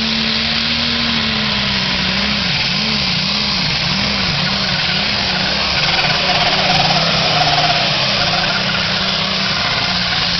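A diesel pulling tractor's engine running hard under load down the track. Its pitch swings up and down about twice a second for a few seconds, then settles.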